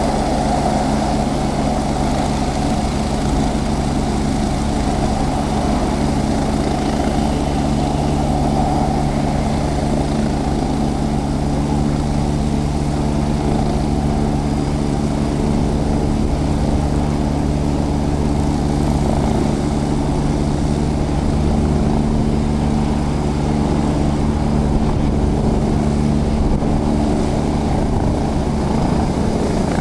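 Twin-engine helicopter with its turbine engines and main rotor running steadily on the ground, then lifting off near the end.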